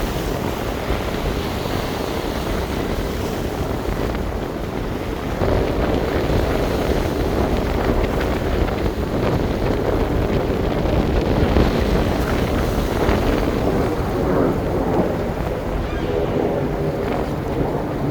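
Strong wind buffeting the microphone over the rush of breaking surf, a little louder from about five seconds in.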